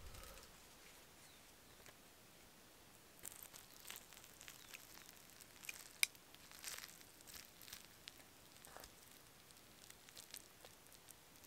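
Faint clicks and scrapes of chopsticks against a split bamboo tube as cooked egg is picked out of it, with one sharper click about six seconds in.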